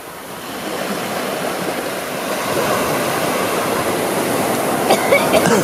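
Small waves washing onto a beach, a steady rushing of surf that grows a little louder after the first second.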